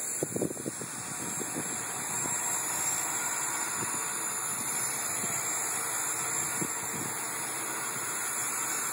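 Small electric radio-controlled helicopter's motor and rotors running steadily in flight: an even high whine with a rotor hiss. A few brief bumps sound just after the start.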